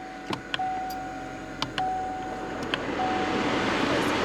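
A car's warning chime sounds as a steady beep in repeated tones of about a second each, with short gaps. Sharp clicks fall between the tones. A steady rushing noise inside the car cabin builds up about three seconds in.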